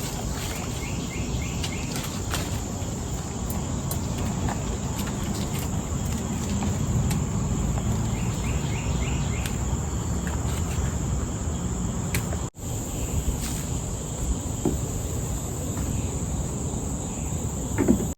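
Steady high-pitched drone of an insect chorus, crickets and similar, over a low outdoor rumble, with a few short chirps; the sound cuts out for an instant about twelve seconds in.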